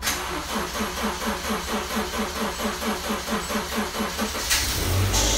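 Cold start of a frost-covered car: the starter cranks the engine in an even rhythm of about five beats a second, then the engine catches and begins running near the end.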